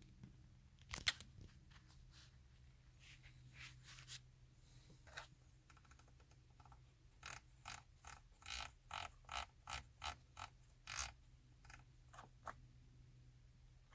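Sharp mechanical clicks: a few scattered ones, then a run of about ten at two to three a second. This is the clicking a 2014 Chevy Silverado makes when it won't crank, the sign of an electrical fault.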